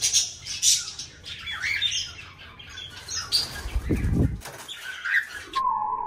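Pet parrots chirping, with wings flapping and short flutters as they are let out of a small wooden cage. There is a low thud about four seconds in, and a steady tone starts shortly before the end.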